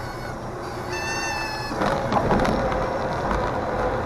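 Cabin noise of a Cessna 162 Skycatcher's Continental O-200 engine and airflow, with a brief steady tone about a second in. The noise swells about two seconds in and settles into a steady hum.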